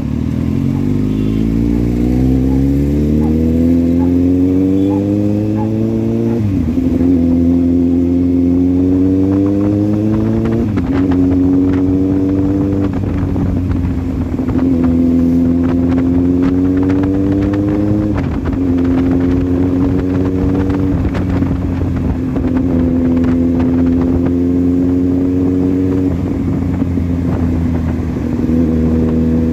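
Motorcycle engine running under way, the revs climbing steadily for about six seconds, then holding a steadier pitch broken by several short dips and slow climbs as the throttle is eased off and rolled on again.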